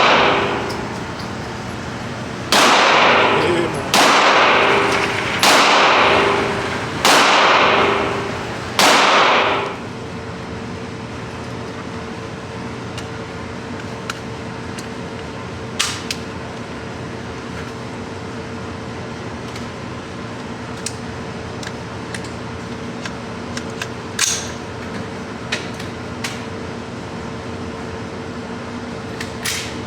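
Gunfire from a firearm at a gun range: five shots about a second and a half apart, each with a long echoing tail, while the tail of a previous shot dies away at the start. After the shots comes a steady hum with a few faint, sharp distant cracks.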